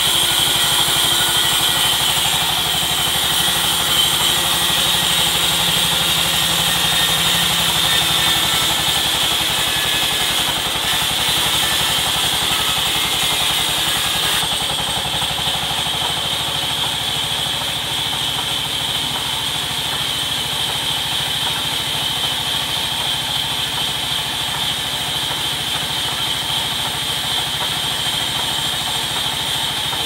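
Sawmill's vertical band saw running and cutting through a teak log: a steady high whine over a raspy sawing noise, with the drive motor's drone underneath. The higher rasp thins out and the sound eases slightly about halfway through.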